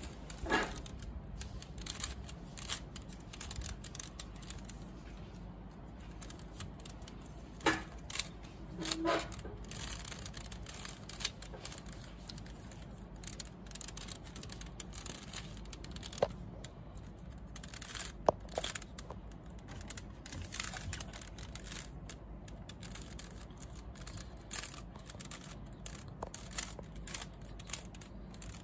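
Plastic 3x3 Rubik's cube being turned by hand, its layers clicking and clacking in an irregular series of quick turns, with a few louder clacks.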